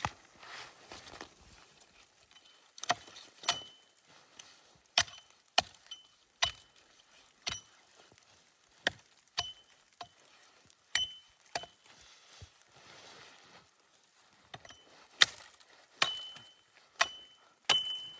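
A series of about fifteen sharp knocks, often coming in pairs, several with a brief high metallic ring; they pause for a few seconds about two-thirds of the way through, then resume.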